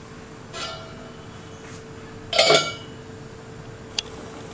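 Stainless steel lid clinking against a metal cooking pan as it is set on to cover the simmering gravy: a light clink about half a second in, then a louder clink that rings briefly about two and a half seconds in, and a short tick near the end. A steady faint hum runs underneath.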